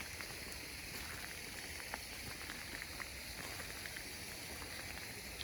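Steady rush of water from a garden waterfall, with a few faint ticks.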